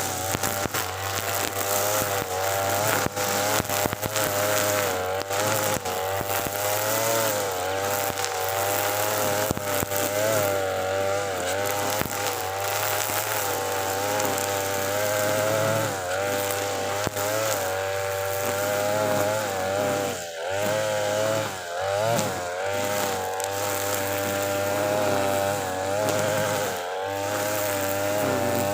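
TB43 two-stroke brush cutter with a line trimmer head running at full throttle while cutting thick grass, its engine pitch wavering up and down with the load and dipping briefly a few times about two-thirds of the way in. Frequent sharp ticks run through the engine sound.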